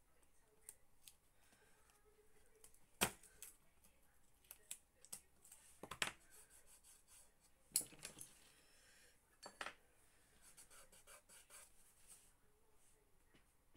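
Masking tape being handled: strips pressed and rubbed down onto paper, with soft rubbing and small ticks and four sharp clicks spread through.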